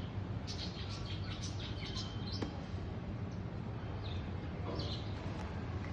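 Small birds chirping: scattered short, high chirps, busiest in the first half, over a steady low background hum.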